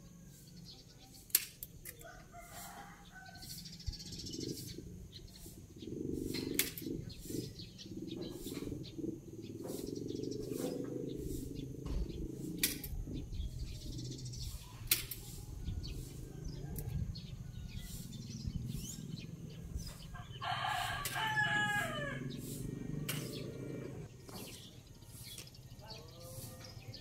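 A rooster crows once, about three-quarters of the way through, over a low steady outdoor background with scattered sharp clicks.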